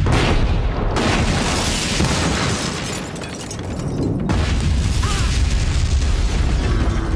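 A barn explodes in a fireball with a heavy blast and a long rumble. A second blast comes about four seconds in, with fire and debris rumbling on.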